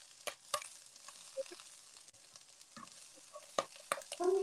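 Octopus tentacle pieces sizzling gently in oil in a nonstick frying pan, with a few sharp clicks of the utensil against the pan as the pieces are turned.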